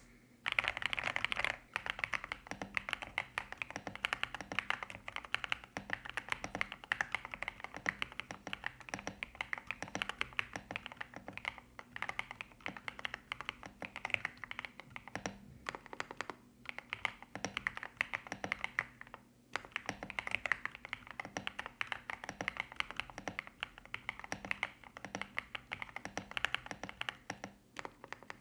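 Continuous typing on a Kzzi K75 Lite mechanical keyboard with stock Rainbow linear switches and MOA-profile keycaps: a dense stream of quick key clacks, with short pauses about a second in and about two-thirds through.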